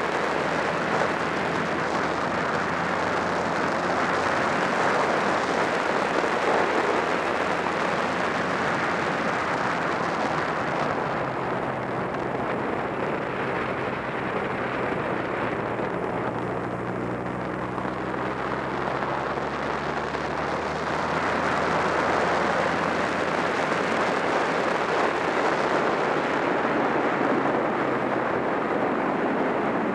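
Wind rushing over the microphone of a moving Honda Rebel 250 motorcycle, with the bike's small air-cooled parallel-twin engine running steadily underneath. The wind noise eases for several seconds in the middle, and the engine's low hum comes through more plainly.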